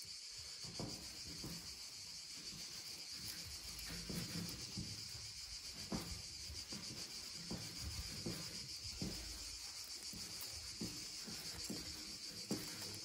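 Insects chirring steadily in a continuous high-pitched drone, with a few faint knocks under it.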